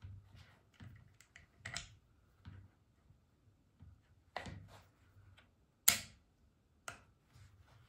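Small metal clicks and clacks from the stripped receiver of a Gevarm .22 LR semi-automatic carbine being handled and worked by hand, with one sharp click about six seconds in.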